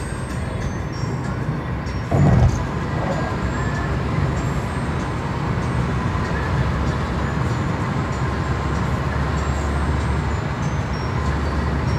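Steady road and engine rumble heard inside a moving car, with a brief loud thump about two seconds in.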